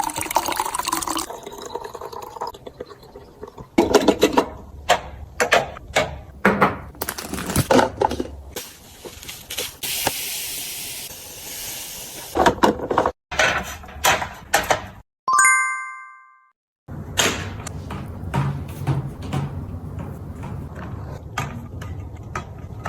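Household items and packaging being handled and set down during restocking: a run of knocks and clatters, a steady hiss lasting about two seconds near the middle, then a short high chime.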